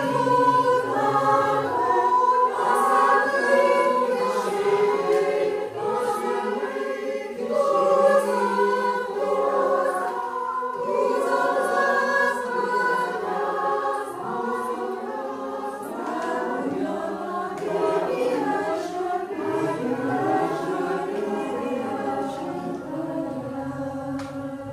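A choir singing a cappella; toward the end the voices settle on long held notes.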